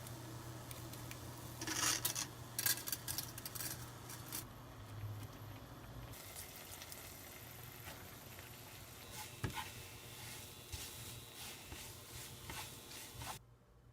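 Napolitan pasta being stir-fried in a frying pan: a steady sizzle with the utensil scraping and clattering against the pan, in a busy run of knocks a couple of seconds in. The sound cuts off abruptly near the end.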